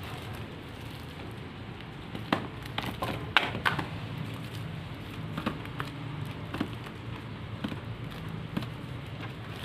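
Plastic-wrapped canvas packs being handled and set down on a wooden table: scattered light clicks, taps and crinkles, with a few sharper knocks between about two and four seconds in, over steady rain.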